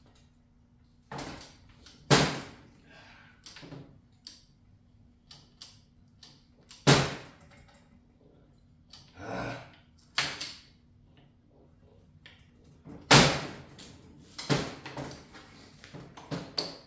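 Motorcycle transmission on a workbench being shifted by hand through its gears: a series of irregular sharp metal clunks and clicks from the shifter and shift cam, the loudest about seven and thirteen seconds in. The owner suspects something is not right in the shift cam.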